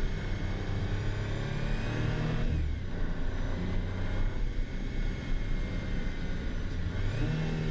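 Audi RS 4 Avant's 2.9-litre twin-turbo V6 running under way. Its note drops about two and a half seconds in, holds steady, and climbs again near the end.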